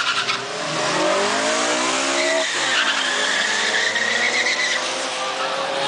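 Two cars, a Honda Civic Si and a white sedan, launching side by side from a drag-strip start line and accelerating hard. The engine note climbs steadily, breaks and drops about two and a half seconds in at an upshift, then climbs again as the cars pull away.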